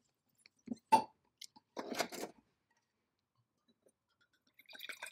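A cork pulled out of a wine bottle with a wing corkscrew: a sharp pop about a second in, then a short rustling scrape. Near the end, wine glugs out of the bottle into a glass.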